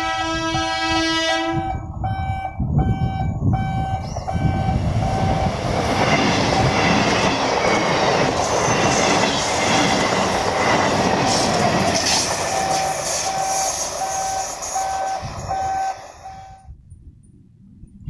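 Electric multiple-unit local train passing close by at speed, a loud continuous rush and rumble of wheels on rails, with a warning tone beeping a little over twice a second throughout. The sound cuts off abruptly near the end.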